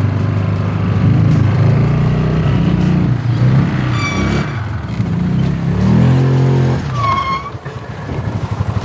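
Off-road buggy engine revving up and down as it drives, with two brief high squeals about four and seven seconds in. Near the end the engine settles into a steady, fast-pulsing run.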